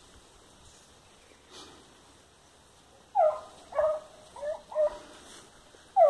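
Hunting dog barking on a paca's trail. After about three seconds of quiet come four short, high barks in quick succession, each dropping in pitch, then one more near the end.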